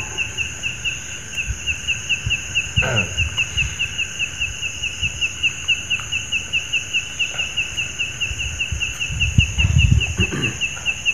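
An animal chirping steadily, short high chirps about four a second, over a continuous high hiss. A few low knocks and a short low rumble come near the end.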